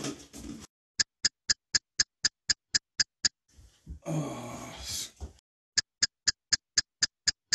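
Ticking of a spinning prize wheel: sharp, even clicks about four a second, in two runs of about ten, that do not slow down. About four seconds in, the ticking stops for a roughly one-second noisy sound, then resumes.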